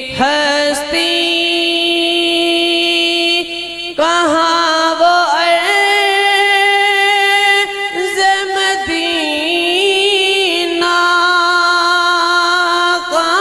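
A man singing a naat (Urdu devotional song) into a microphone, drawing out long held notes with a wavering pitch and sliding between them.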